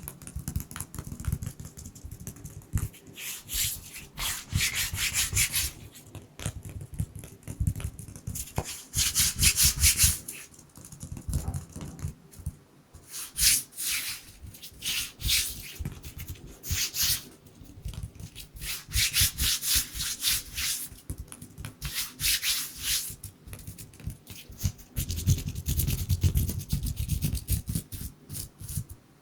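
Dry bare hands rubbing and fluttering together close to the microphone for ASMR: bursts of quick, fine, crackly friction sounds coming in uneven bunches, with short pauses between them.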